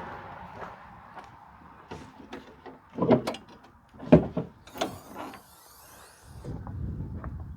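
Scattered knocks and clunks of things being handled, the loudest two about a second apart near the middle, with a brief scraping rasp just after them and a low rumble near the end.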